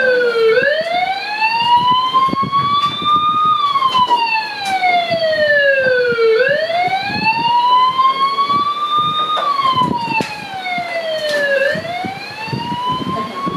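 Wailing siren, its pitch climbing slowly and sliding back down about every six seconds, with scattered short knocks underneath.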